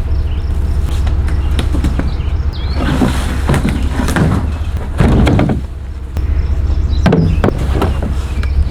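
Several knocks, clunks and short scrapes of gear being handled and loaded, over a steady low rumble.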